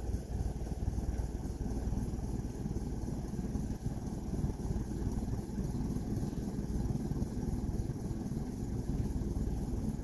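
A Hunter Santa Barbara ceiling fan runs at speed. It makes a steady low rush of air from its spinning blades, with the downdraught buffeting the microphone.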